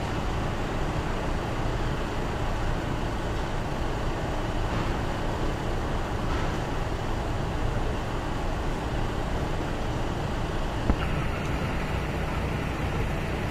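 Steady rumble of road traffic and idling vehicle engines, with a single short knock about eleven seconds in.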